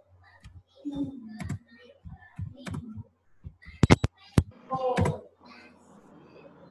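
Computer keyboard clicks, with a quick cluster of sharp clicks about four seconds in, among short stretches of indistinct voice.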